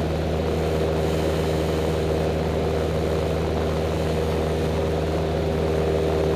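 Single-engine propeller light aircraft's piston engine and propeller running steadily in flight, heard inside the cockpit.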